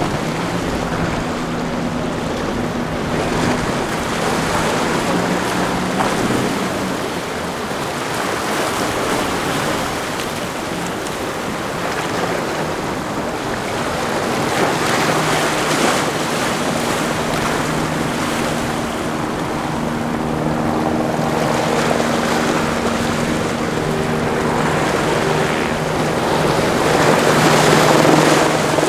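Outboard motors of center-console boats running as they pass through choppy water, a steady low engine hum under the rush and splash of waves, with wind on the microphone.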